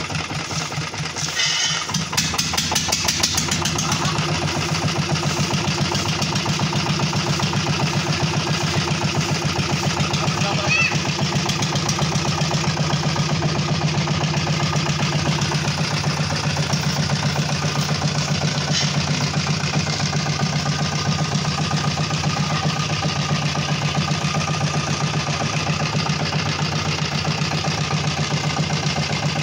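A 16 hp stationary diesel engine running with a steady, even beat; it picks up and gets louder about two seconds in, then runs on evenly. The engine has just been repaired and is running properly again.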